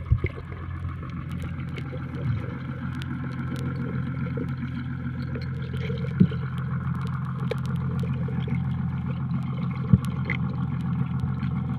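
Boat engine running steadily with a low, even hum, with a few short knocks about a second in, around six seconds in and near ten seconds.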